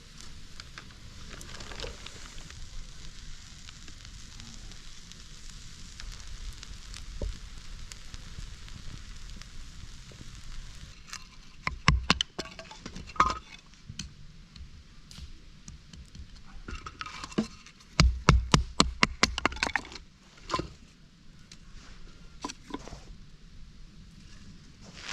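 A fire-pit cooking scene: a low, steady sizzle and crackle, broken twice by loud clusters of sharp clicks and knocks, like utensils or pans being handled over the fire.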